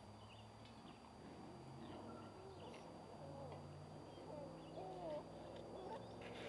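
Faint soft animal calls: a few short notes that rise and fall in pitch, about halfway through, over a low steady hum.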